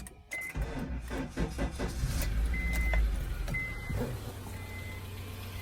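2009 Honda CR-V's 2.4-litre four-cylinder engine cranking for about a second and a half, catching, rising briefly and settling to a steady idle. A warning chime pings four times at a single pitch.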